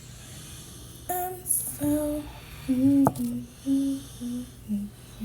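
A woman's voice humming a short wordless tune of held notes that step down in pitch, with a sharp click about three seconds in.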